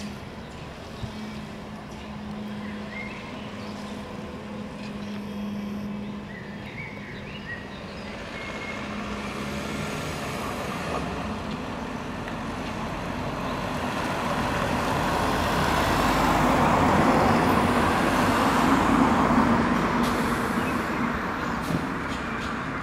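Articulated electric trolleybus approaching at low speed, its motor and tyre noise growing steadily louder and peaking a few seconds before the end. A steady hum runs through the first half.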